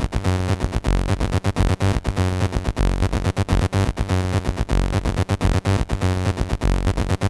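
Electronic demo soundtrack played by an Amiga 1200: a fast, steady beat under layered synthesizer notes.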